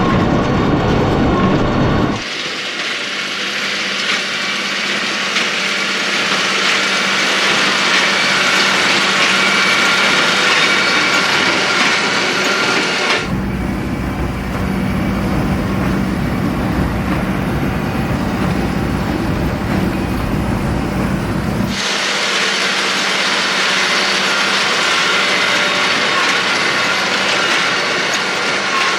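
Claas Axion 850 tractor and Claas Quadrant large square baler running steadily at work. The sound switches abruptly three times: about two seconds in, a little before halfway, and about three quarters through. It alternates between a deep low rumble and a brighter, hissier machinery clatter.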